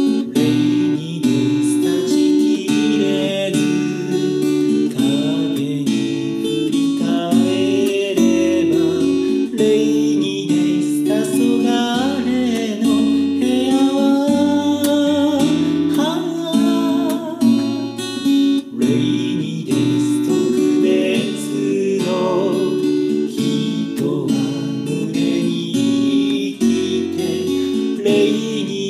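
Acoustic-electric guitar played fingerstyle: picked chords under a melody line, running through a TC-Helicon Play Acoustic processor on its preset settings.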